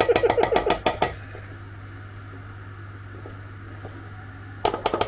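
Metal spoon knocking and scraping butter into a metal baking tin: a quick run of taps for about the first second, then another run near the end.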